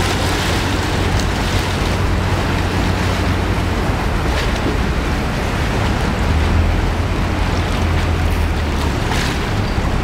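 A wooden river water taxi's engine running with a steady low drone, over the churn and splash of river water around the hull.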